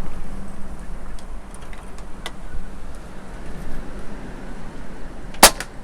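Gusty wind buffeting the microphone, then a single sharp shot from an Air Venturi Avenger PCP air rifle near the end.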